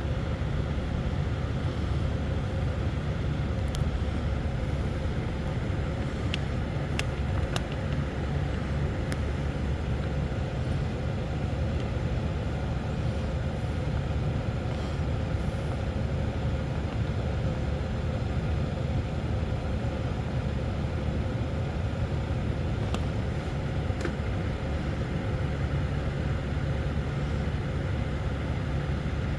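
Steady low rumble of a running vehicle, even throughout, with a few faint clicks.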